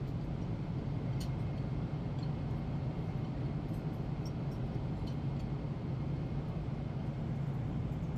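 Steady low drone of a Boeing 747-8i airliner cabin in flight, with a few faint light clicks.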